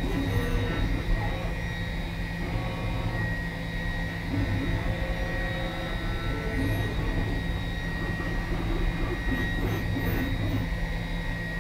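DN Solutions DVF 5000 five-axis CNC mill running, a lollipop end mill cutting a steel part: a steady high whine over a low machine hum.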